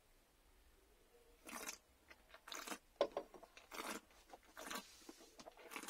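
Mouth noises of a person tasting a mouthful of still cider: about five short wet sucking and swishing sounds, roughly one a second, with small lip and tongue clicks between them.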